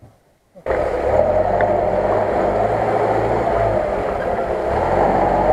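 UAZ-469 off-road vehicle's engine running steadily as it drives through a deep muddy rut, cutting in abruptly less than a second in.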